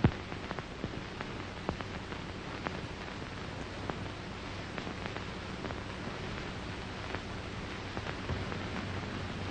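Steady hiss with scattered clicks and crackles over a faint low hum: the surface noise of an early-1930s optical film soundtrack, with one sharp pop right at the start.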